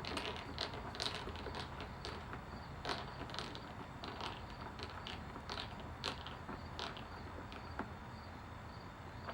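A hand tool tightening the door handle's retaining screw back up on a pickup truck door, with scattered small clicks and creaks at an irregular pace.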